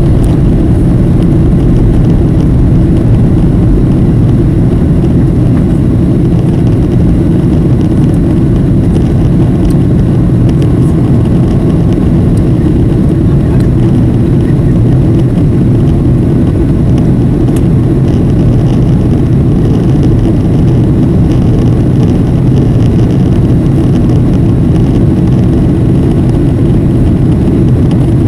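Steady, deep cabin noise of a Boeing 737 in flight: its jet engines and the air rushing past, heard from a window seat inside the passenger cabin.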